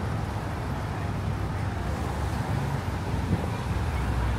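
Street traffic: a steady low rumble of cars and engines passing on a city street.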